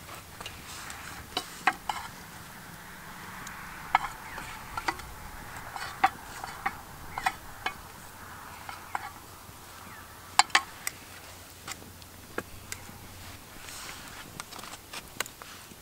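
Metal spoons clinking and scraping against metal cooking pots and bowls at a camp stove: irregular sharp taps with a short ring, and soft scraping between them. The loudest is a double clink about ten seconds in.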